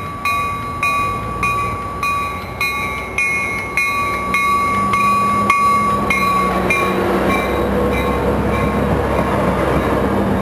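Trinity Railway Express commuter train passing close by, cab car first, its cars rumbling louder in the second half. A bell rings about twice a second and fades out after about seven seconds.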